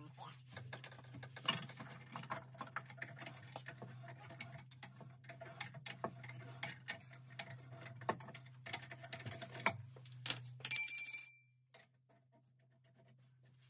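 Irregular clicks and light taps of hands and tools working on pipe and fittings, over a steady low hum. About eleven seconds in there is a brief louder sound with a high-pitched tone, then it falls nearly silent.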